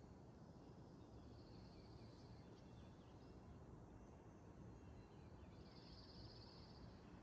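Faint songbirds singing: two high, rapid trills, the second louder about six seconds in, with a few soft chirps between them, over a low steady background rumble.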